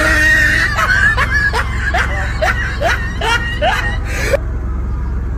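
A person laughing in a run of short rising bursts, over the steady low rumble of the car they are filming from.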